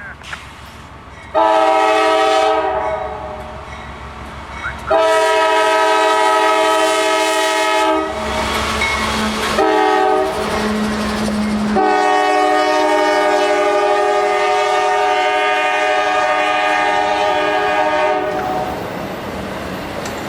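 Diesel freight locomotive's multi-chime air horn sounding the grade-crossing pattern of long, long, short, long, over the low rumble of the passing train.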